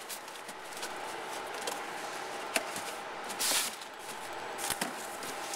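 Corrugated cardboard box flaps and a plastic-wrapped insert being handled: soft rustling and scraping, with a couple of light knocks and a brief louder scrape about three and a half seconds in.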